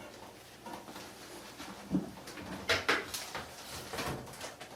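A few faint knocks and clicks from handling the parts of an opened-up dryer, with a louder knock about two seconds in and two more near three seconds.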